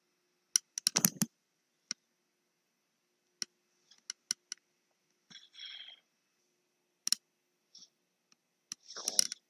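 Scattered sharp clicks and light knocks: several close together about a second in, a few single ones in the middle, and another cluster near the end, with a short rustle about halfway.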